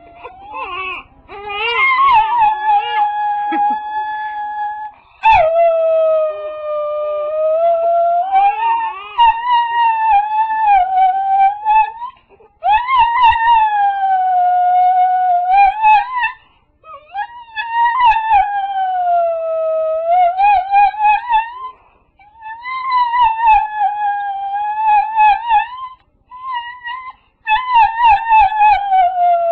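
Dog howling in long, wavering cries, several seconds each, broken by short pauses for breath, about six in all; the last ones break into a quick pulsing wobble.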